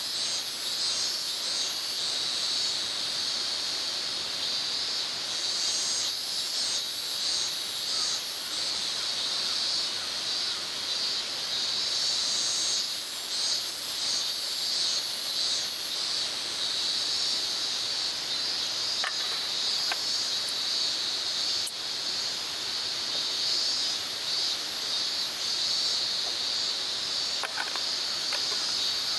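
A steady, shrill chorus of insects, with higher buzzing layers that swell and fade in pulses. A few faint light clicks come through past the middle.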